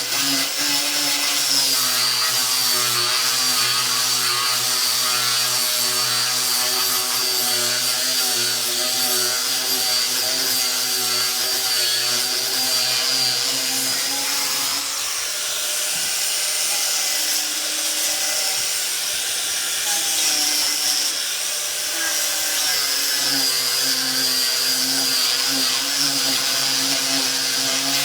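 4½-inch angle grinder fitted with a 50-grit sandpaper disc, running steadily and sanding wood. Its whine dips in pitch about halfway through and again a few seconds later.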